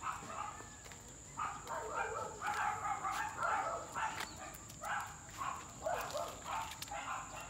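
Dogs barking in a string of short, quick barks.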